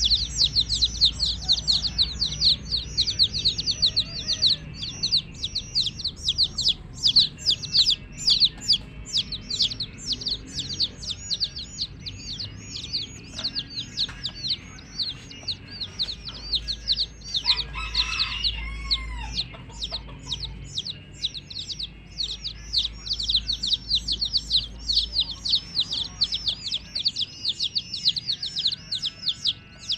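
Domestic chicks peeping continuously: many high, short, falling peeps, several a second. A lower, louder call with sliding pitch breaks in a little past halfway.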